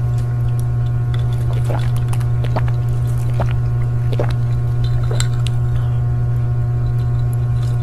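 A loud, steady low hum, with faint scattered clicks over it.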